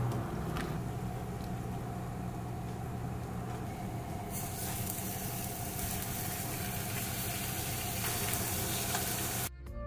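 Food sizzling in a frying pan over a steady low hum; the sizzle gets louder and hissier about four seconds in.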